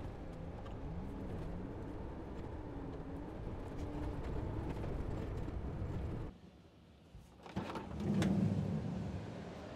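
Volkswagen Crafter van driving on a gravel road, heard from inside the cab: a steady low rumble of engine and tyres, with an engine note that wavers up and down. After about six seconds it stops abruptly, then a few clicks and a louder low rumble follow near the end.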